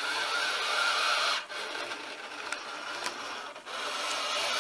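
Sail winch servo whirring as it winds and unwinds the cord that drives a ventilator arm squeezing and releasing a bag-valve-mask (Ambu bag). It stops briefly about every two seconds as the arm changes direction, and every other stroke is louder and higher-pitched.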